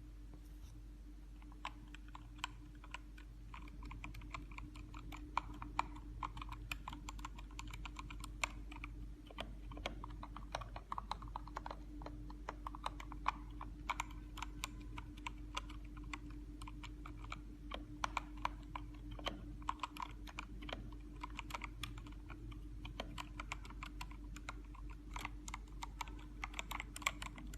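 Mechanical keyboard with pre-lubed switches being typed on: quick, irregular keystrokes starting about a second and a half in, over a steady low hum.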